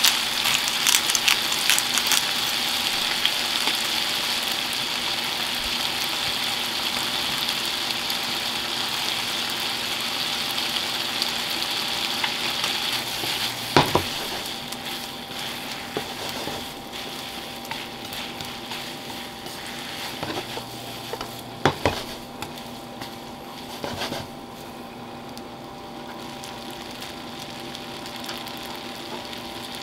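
Spaghetti and bacon sizzling in oil in a frying pan while being stirred and tossed with chopsticks. The sizzle is loudest in the first half and dies down about halfway through, with a few sharp knocks against the pan.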